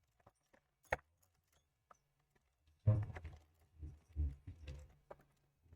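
Small tools and parts being handled and knocked about on a workbench while rummaging for a jumper wire: a sharp click about a second in, then a run of knocks and rattles about three seconds in.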